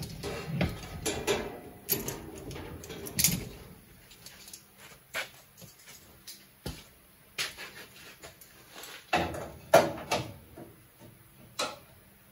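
Irregular metal clinks, knocks and rattles of hand tools and sheet-metal parts being handled as locking C-clamps are set to hold a radiator support panel in place. The busiest clattering comes in the first few seconds and again about three quarters of the way through.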